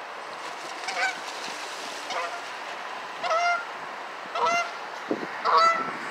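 Canada goose honking repeatedly, about five short calls roughly a second apart and getting louder, as it chases and defends its territory against a radio-controlled jet boat. A steady hiss runs underneath.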